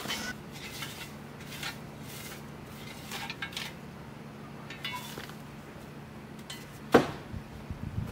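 Shovel scraping over dirt and scooping spilled wood-shaving chicken bedding, tipped into a plastic tub in a series of short scrapes and clatters, with one sharp knock about seven seconds in.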